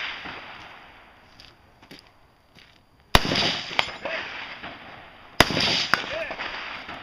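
Two rifle shots about two seconds apart, each followed by a long rolling echo. A fainter sharp crack comes about half a second after each shot.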